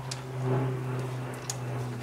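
A couple of light, sharp clicks from hand tools being handled on a car's front suspension, over a steady low hum.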